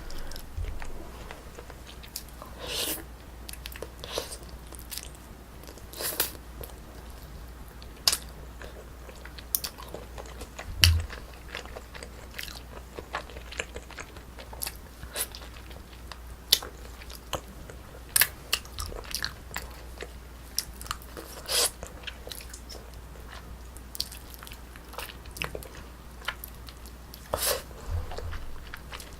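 Close-miked eating of braised spicy chicken: chewing and biting with irregular wet clicks and small crunches, a few sharper ones scattered throughout.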